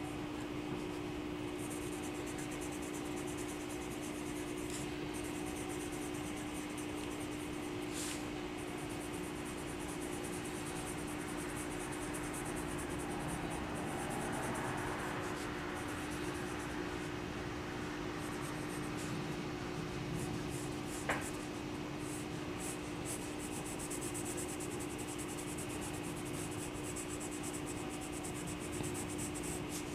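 Colored pencil scratching on paper in many small, quick shading strokes, over a steady low hum. One sharp click about two-thirds of the way through.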